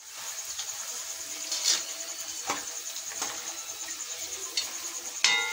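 Puris deep-frying in hot oil in an iron kadhai, giving a steady sizzle. A metal ladle knocks a few times against the pan, and a louder clink that rings on comes near the end.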